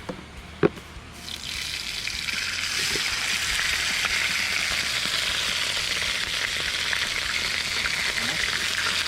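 Common carp frying in hot oil in a pan. A sharp knock comes about half a second in. The oil then starts to sizzle about a second in and builds to a steady, loud sizzle.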